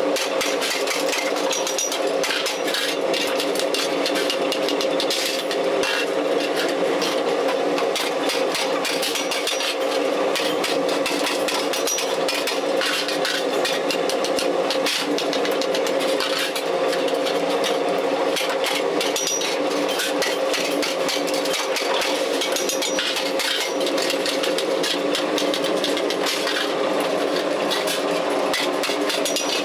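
Workshop machinery running steadily, an electric motor's hum, with many light metallic clicks and taps from metal being worked.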